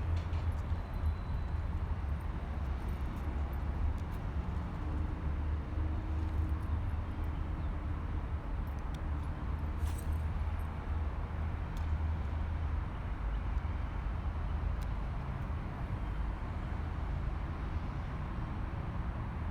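Steady low rumble of city traffic, with a few faint clicks over it.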